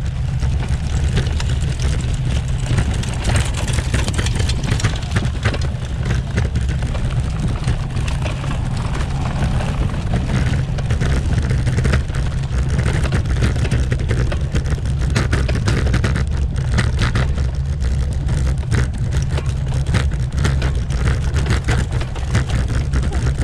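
Bicycle riding hard over cobblestones (pavé): a constant heavy low rumble with dense, irregular clattering and rattling from the bike being shaken on the stones.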